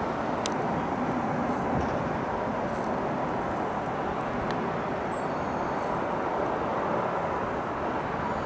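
Steady outdoor rushing noise at an even level, with a couple of faint clicks.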